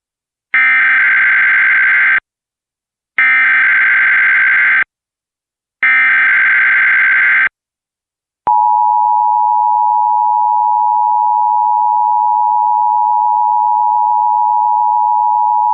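Emergency Alert System required-monthly-test tones: three short, loud bursts of buzzy digital SAME header data, which encode the alert type and areas, evenly spaced about a second apart. A little over halfway through, the steady two-tone EAS attention signal begins.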